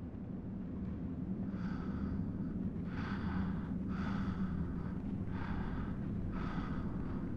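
A man breathing heavily and raggedly, about one breath a second, starting about a second and a half in, over a low steady drone.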